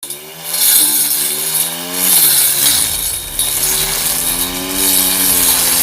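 Homemade grass trimmer driven by a 775 DC motor, running loud with a high hiss and a whine that slowly rises and falls in pitch several times as its speed changes.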